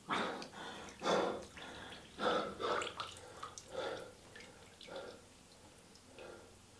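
A man gasping for breath after holding his face under water in a bowl: about seven heavy breaths, the first few loudest, then fading, with water dripping off his face and hair.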